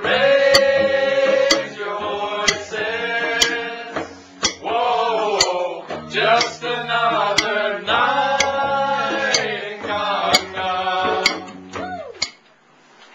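A man singing loudly in long, bending phrases, with a sharp clap or click about once a second keeping time. The singing stops about twelve seconds in.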